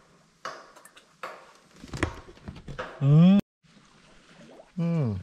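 Noodles being slurped up off chopsticks, two stretches of wet sucking in the first two seconds. Then two short loud vocal sounds, one rising about three seconds in and one falling near the end.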